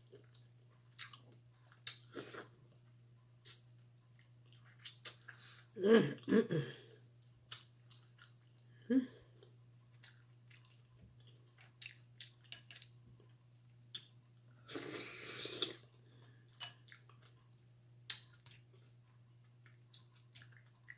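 Close-up eating sounds of boiled mussels and shrimp in butter sauce: chewing, lip smacks and many short wet mouth clicks. There is a brief hum about six seconds in and a second-long slurp about two-thirds of the way through.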